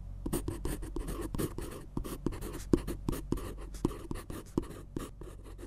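Pen scratching across paper in quick, irregular strokes, as in handwriting.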